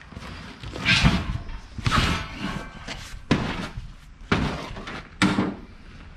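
A large rubber tractor inner tube being pulled out of the tyre and handled, giving five heavy thuds and slaps about a second apart.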